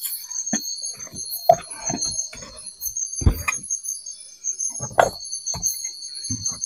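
A spoon knocking and clinking against a small cooking pot in irregular strokes, the strongest a dull knock about three seconds in, over a steady high chorus of night insects.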